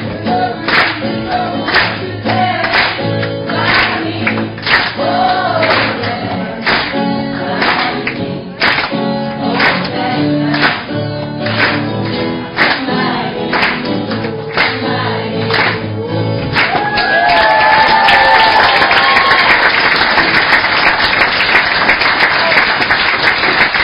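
Two guitars strummed with group singing and hand-clapping on the beat. About two-thirds of the way through, the song ends and breaks into loud applause and cheering.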